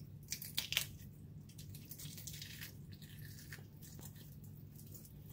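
Wet squelching and tearing as fingers pull the gills out of a raw blue runner, with scattered small clicks of handling. A steady low hum runs underneath.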